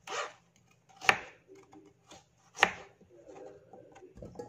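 Kitchen knife cutting through carrots onto a cutting board: four sharp chops, the loudest two about one and two and a half seconds in.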